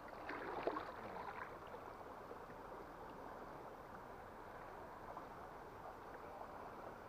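Steady rush of flowing river water, with a few brief sharper sounds in the first second and a half.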